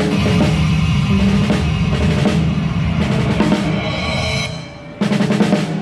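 Drum kit played live with band music: rapid snare and bass-drum hits over a heavy low end. It drops away briefly near the end, then comes back with a quick burst of hits.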